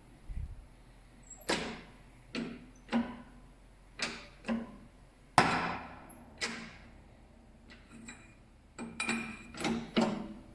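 A series of sharp metallic knocks and clinks of metal striking metal, each ringing briefly. They are irregularly spaced, with the loudest about halfway through and a quicker run of them near the end.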